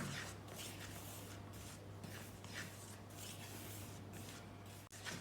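Gram flour batter being stirred and scraped in a bowl: rhythmic rubbing strokes, about two a second, over a faint steady hum.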